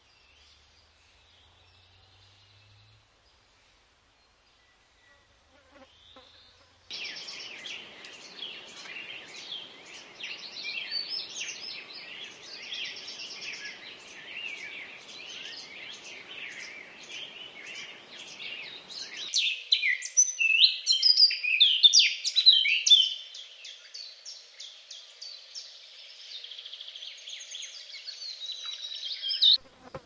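Hummingbirds twittering in rapid, high, squeaky chirps over a low hum, starting suddenly after several seconds of near quiet. The hum drops out about two-thirds of the way in, and the chirping turns louder for a few seconds after that.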